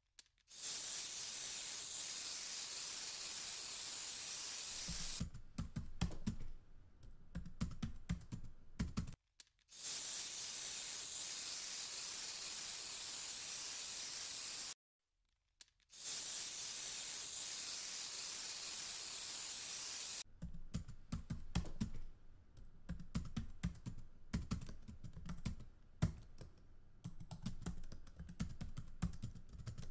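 Spells of steady hiss that start and stop abruptly, alternating with two stretches of rapid, irregular light clicking, the second running on to the end.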